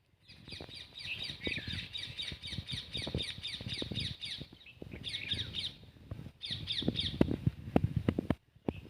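Birds calling in fast runs of short repeated high notes, about four or five a second, in three bursts with short breaks between. Low knocks and thumps sound underneath, loudest near the end.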